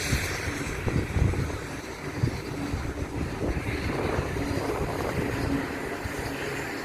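Low, steady rumble of a moving vehicle, with uneven thumps of wind buffeting the microphone.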